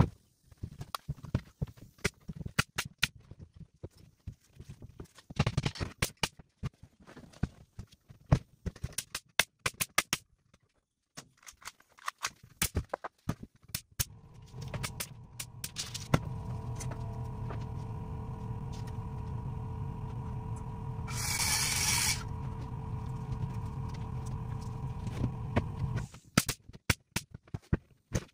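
Pneumatic nail gun firing nails into OSB sheathing, a run of sharp shots. About halfway through, an air compressor kicks on and runs steadily for some ten seconds, refilling after the nailing, with a short hiss of air near its end. Nailing resumes near the end.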